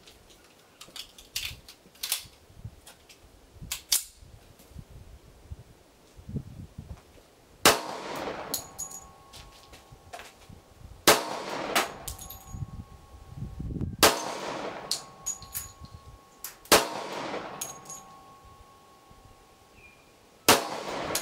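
M1911 pistol in .45 ACP fired five times, a few seconds apart, each loud report followed by a lingering ring. Fainter sharp clicks come in the first few seconds, before the first shot.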